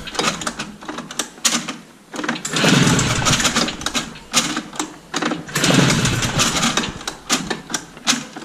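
Recoil pull-starter of a 1980 Yamaha Enticer 300 two-stroke twin snowmobile engine yanked repeatedly, with a cranking rush about every three seconds. The engine turns over without firing as it is cranked for a compression test.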